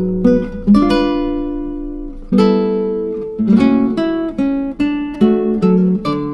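Acoustic guitar music, with notes and chords plucked and left to ring out. A louder chord is struck about two seconds in.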